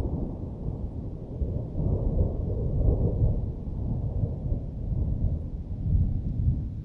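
Thunder rumbling: a long, low rolling rumble that swells about two seconds in and again near the end, then dies down.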